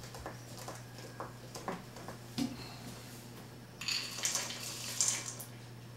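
Wooden spoon knocking and scraping in a glass mixing bowl as flour is stirred into cookie dough, then, about four seconds in, a brief rustle as chocolate chips are tipped into the bowl.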